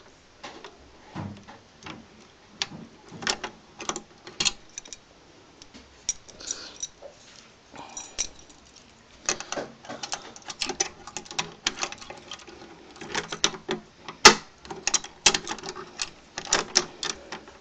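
Ring of three-lever try-out keys jangling while a key is worked back and forth in a three-lever lock, giving irregular metallic clicks and rattles as it catches the levers. The clicks come thicker in the second half, with one sharp, loud click late on.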